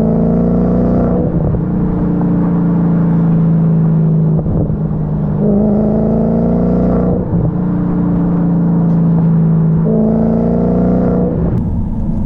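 2005 Audi S4's 4.2-litre V8 running under way through a muffler-deleted MagnaFlow exhaust, a steady drone whose note rises briefly three times. The tune is in its normal mode, so there are no pops or burbles.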